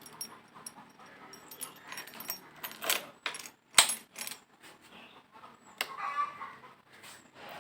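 Keys jangling with scattered sharp metallic clicks: the motorcycle's new key set being handled. A short whining sound comes about six seconds in.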